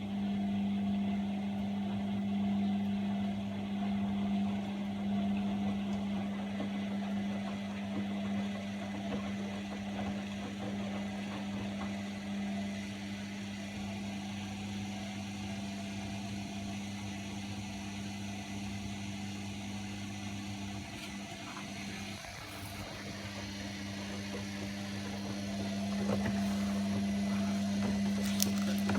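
Washing machine running, a steady motor hum that eases off a little in the second half and picks up again near the end, with a couple of short clicks at the very end.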